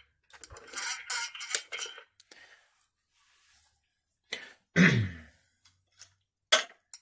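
A man clearing his throat once, about five seconds in, its pitch falling, among light rustling and a few sharp clicks of handling.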